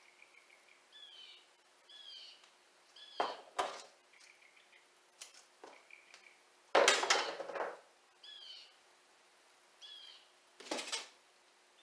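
Sticky tape being pulled and peeled by hand: a few short rustling rips, the loudest lasting about a second some seven seconds in, with faint chirping in between.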